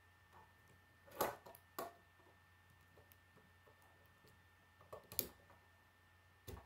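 K'nex plastic rods and connectors clicking as they are handled and snapped together: a few sharp clicks, in pairs about a second in and about five seconds in, and one more near the end.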